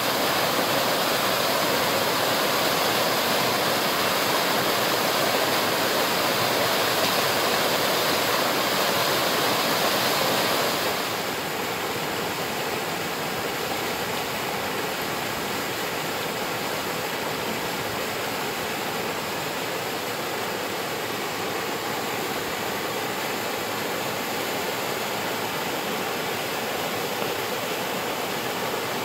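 Waterfall: water pouring and splashing in a steady rush. About eleven seconds in it becomes a little quieter and less bright.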